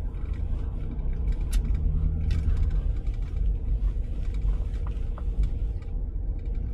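Car cabin noise while driving over a rough, uneven lane: steady low tyre and road rumble with a few faint knocks.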